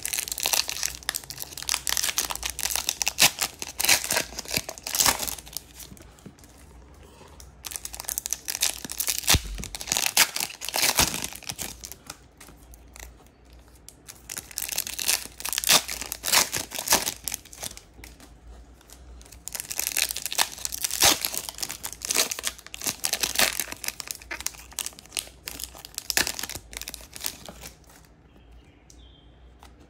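Topps Chrome trading-card pack wrappers being torn open and crinkled, in about four bouts of crackling separated by short pauses.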